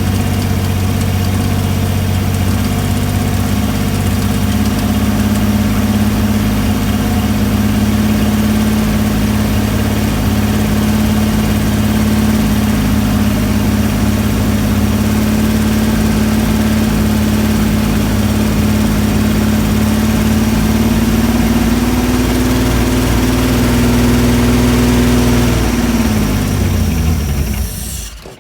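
Chrysler Hemi 265 straight-six engine idling steadily just after starting. The idle speed rises slightly a little past twenty seconds in; near the end the engine is switched off and winds down to a stop.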